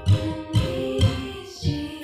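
A woman singing over a strummed acoustic guitar, the strums falling about three times a second.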